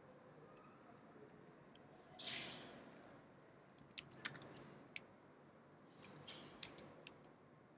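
Computer keyboard keystrokes: two short runs of clicks, around four seconds in and again between six and seven seconds, as short shell commands are typed. A brief soft hiss comes about two seconds in.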